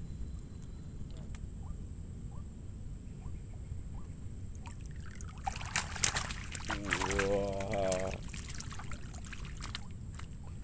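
Water splashing and pouring as a mesh keepnet is hauled up out of a lake, starting about halfway through and lasting about three seconds, over a steady low rumble of wind and water.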